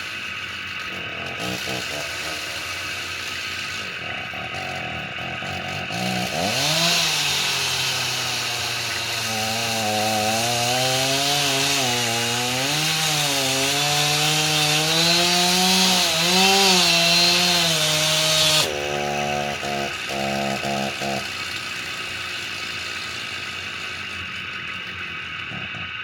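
Two-stroke chainsaw catching about six seconds in, its pitch rising fast, then running with the pitch wavering up and down as the throttle is worked for about twelve seconds before it cuts off suddenly, followed by a couple of brief sputters. A steady background hum runs underneath.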